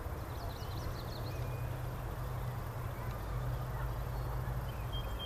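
Outdoor meadow ambience: a steady low hum under a bird's quick series of high chirps about half a second in, and a thin high whistle near the end.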